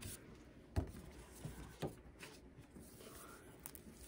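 Quiet handling of a picture book's stiff pages: two soft knocks about a second apart and light rustling as a page is lifted and turned.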